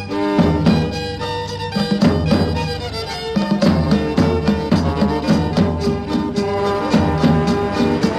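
Instrumental folk music: held melody notes over a repeating bass line and a steady beat.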